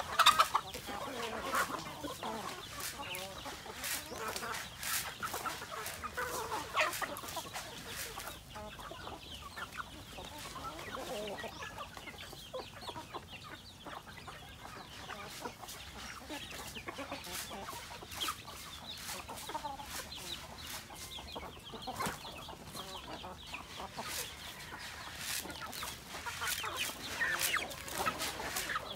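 Flock of native chickens clucking while they feed on scattered grain, with scattered short calls and frequent short clicks.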